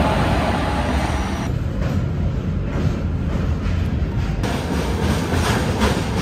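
Moving passenger train running at speed, heard from the coach: a dense rumble of wheels on rails. About four seconds in, a rhythmic clatter of regular knocks sets in as the train runs onto a steel girder bridge.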